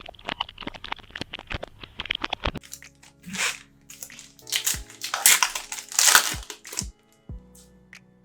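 Plastic wrapping on a sealed trading-card box being torn open and crinkled. A fast run of fine crackles is followed by several louder crinkling rustles, with soft background music underneath.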